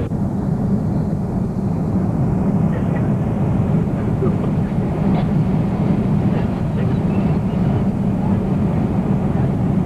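Steady low roar inside the passenger cabin of a Boeing 747-400 airliner: engine and airflow noise heard through the fuselage.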